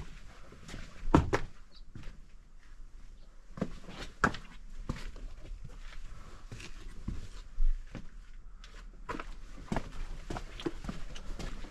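A hiker's footsteps and scuffs, irregular, with a few louder knocks and thumps.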